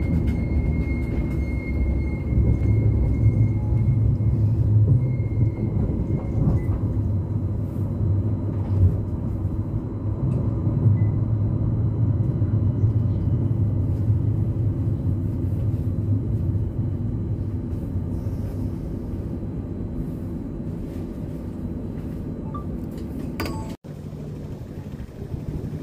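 CAF Urbos tram running along the track, heard from the driver's cab: a steady low rumble, with a thin high whine over it for the first several seconds. The rumble eases gradually toward the end, then cuts off abruptly.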